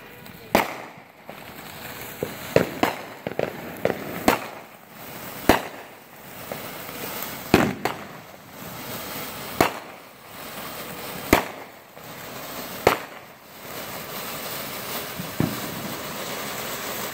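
World Class Fireworks 'Reaper' ground fountain burning, spraying sparks with a steady hiss broken by about a dozen sharp cracks at irregular intervals of one to two seconds.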